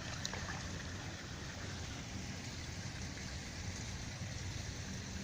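Steady outdoor background noise, an even hiss over a low rumble, with a couple of faint clicks near the start.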